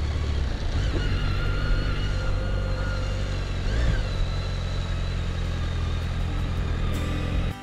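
Motorcycle engine running steadily at low road speed, heard from the rider's seat. Its pitch rises and falls briefly about four seconds in, and the sound cuts off just before the end.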